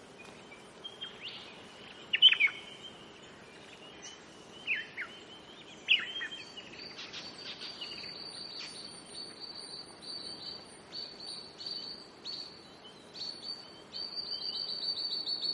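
Wild birds calling with short, sharp downward-sliding whistles, the loudest about two seconds in, with more near five and six seconds. From about seven seconds an insect's high, rapidly pulsing trill runs on, louder near the end.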